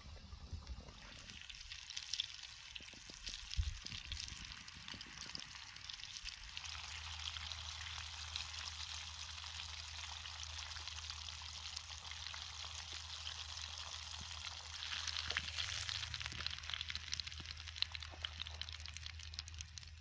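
Chicken deep-frying in hot oil in a pot over a campfire: a steady crackling sizzle of bubbling oil, louder for a couple of seconds about fifteen seconds in. A low steady hum runs underneath from about six seconds in.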